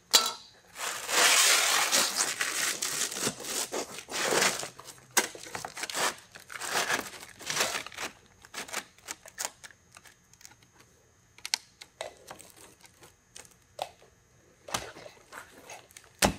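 Asphalt roofing shingles and aluminum flashing being handled and set in place: a dense run of scraping and crinkling in the first few seconds, shorter rustles a little later, then only scattered light clicks.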